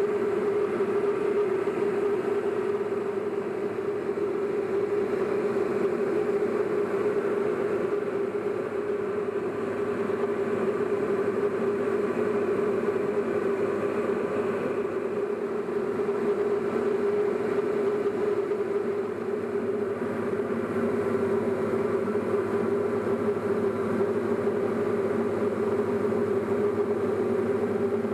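Single-engine light propeller aircraft's engine and propeller droning steadily at cruise, heard inside the cabin.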